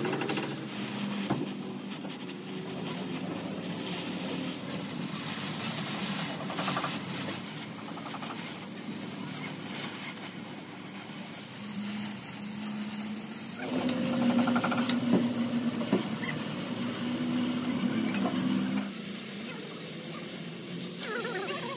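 Oxy-fuel cutting torch hissing steadily as its flame and oxygen jet cut through thick steel plate. A low machine hum runs underneath and grows louder for several seconds past the middle.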